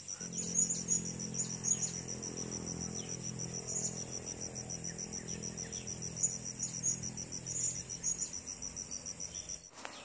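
Insects chirring steadily in a fast, even, high-pitched pulse, with a few short high chirps scattered over it and a low steady drone underneath. It all cuts off suddenly just before the end.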